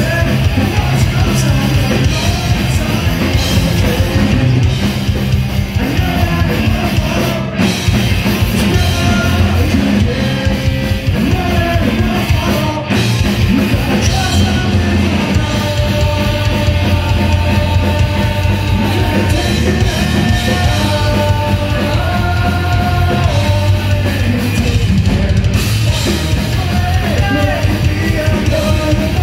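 Punk rock band playing live: distorted electric guitars, bass and a drum kit at full volume, with a singer at the microphone.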